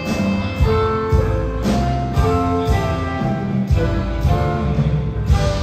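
Rock band and symphony orchestra playing an instrumental passage, electric guitar over bass and sustained orchestral notes, with no vocals.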